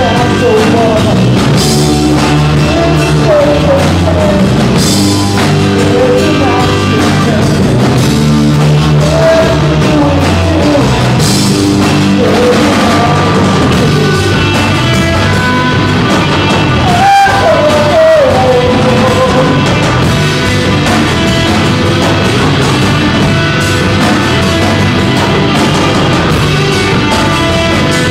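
Live rock band playing loud: electric guitars, bass guitar and drum kit, with a singer's voice over them for about the first two-thirds and the instruments alone near the end. The whole band cuts out for a split second about two-thirds through.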